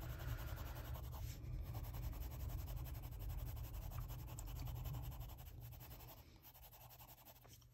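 Grass-green coloured pencil rubbing and scratching on paper as it colours in an area, fading out about six seconds in, over a steady low hum.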